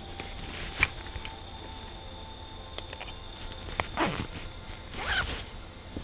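Zipper on a mesh gear pouch being pulled shut in two short runs, about four and five seconds in, after a single click near the start. A steady high insect trill runs underneath.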